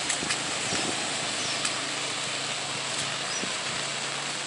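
Steady rain falling on a wet street: an even hiss with a few sharp drop taps.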